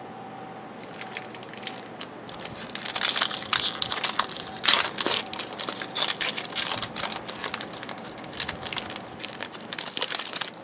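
Trading-card pack wrapper crinkling and crackling as it is torn open and handled, in a dense run of crackles that starts about two and a half seconds in.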